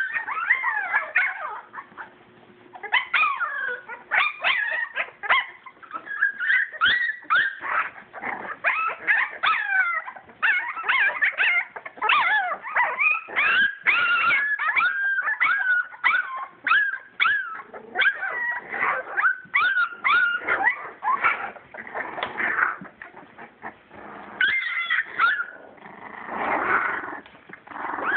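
A litter of young English springer spaniel puppies whimpering and yipping nonstop, many short, high, squeaky cries overlapping one another.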